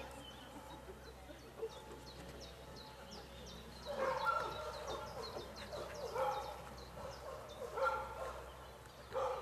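A dog barking four times, the barks a second or two apart, starting about halfway through.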